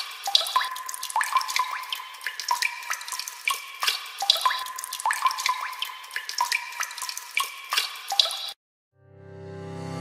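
Water drops plinking into water, many small drips in quick succession, each a short plop rising in pitch. They cut off suddenly about eight and a half seconds in, and music begins to swell up, growing louder, near the end.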